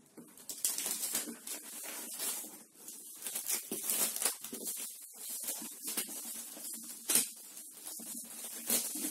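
Plastic stretch wrap crinkling and tearing as it is cut and peeled off a cardboard shipping box, with the box scraping as it is handled. Irregular crackling throughout, with one sharper crack about seven seconds in.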